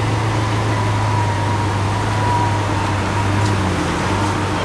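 A vehicle engine idling steadily, a low even hum, with street traffic around it.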